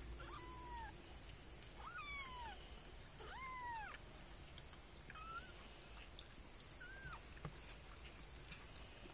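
A young kitten, about 25 days old, mewing five times, each a short high mew that rises and then falls, spaced about a second and a half apart.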